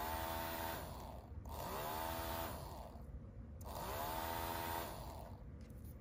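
Small DC motor driving a plastic propeller fan, whirring in short runs as a magnet closes a normally open reed switch. It cuts out about a second and a half in, then twice more starts up with a rising whine and runs about a second before stopping.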